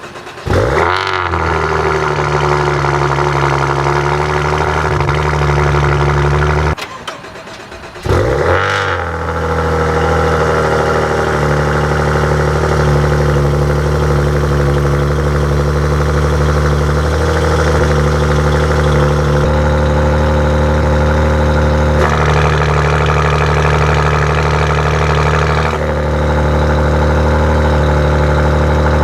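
Stock exhaust of a 2015 Maserati Ghibli V6 on cold starts: the engine cranks and catches with a rising rev flare, then runs a few seconds at a fast idle. About seven seconds in it is shut off, and a second later it is started again, flares, and settles into a steady high cold idle.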